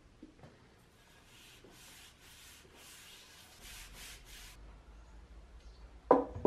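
Gloved hand rubbing linseed oil into a wooden shovel handle, a run of brisk strokes about three a second for some three and a half seconds. Just after six seconds in, two loud knocks as the shovel is put down on the wooden workbench.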